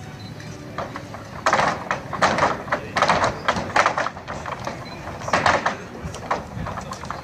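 Flamenco dancers' heeled shoes stamping and clicking on wooden decking, in quick rhythmic bursts that start about a second and a half in and come and go.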